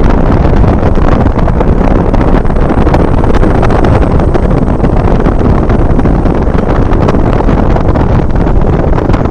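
Wind rushing loudly over the microphone from a moving car, mixed with the car's road noise; a steady, unbroken rush.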